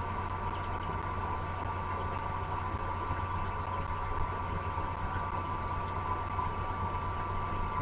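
A steady, even hum with a hiss over it; no calls or other distinct sounds stand out.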